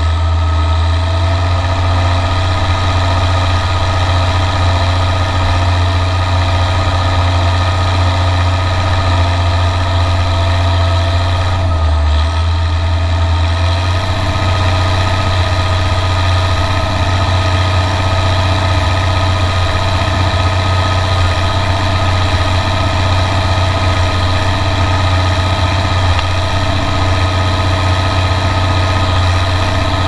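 County 1454 four-wheel-drive tractor's diesel engine running steadily under ploughing load, heard close to its upright exhaust stack. The low engine note shifts briefly about twelve seconds in, then settles back.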